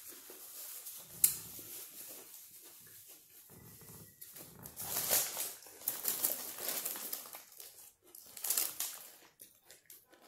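The wrapping of a shawarma wrap crinkling and rustling in irregular patches as it is handled and the filling is picked at, with chewing. A sharp click about a second in.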